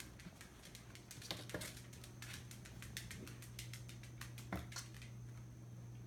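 Kittens' paws and claws skittering on a hardwood-look floor and cardboard boxes: a patter of quick light ticks with a few louder knocks, dying away about five seconds in.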